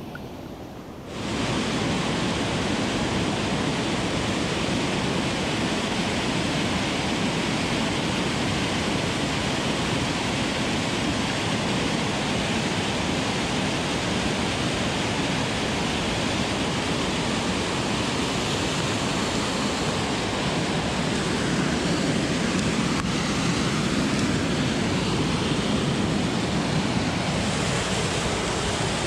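Creek water rushing, a steady even rush that gets suddenly louder about a second in.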